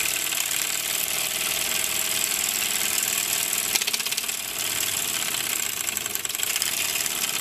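A 1926 Bowman 234 O-gauge live steam locomotive running steadily under steam. Its oscillating cylinders give a fast, even beat with hissing steam. There is a single sharp click just before four seconds in.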